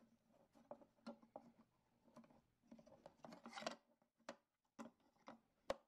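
Faint rustling and small irregular clicks of fingers twisting bare speaker wire onto the terminal tab of a small speaker, with a few sharper clicks near the end.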